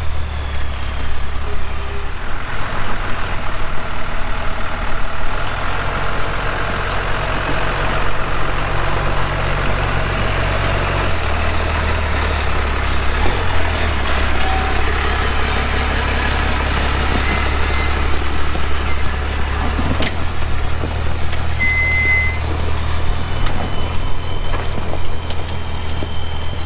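Vehicle engines running at low, steady revs, a deep hum that steps to a new pitch a few times, over a haze of trail and wind noise. A short high beep comes near the end.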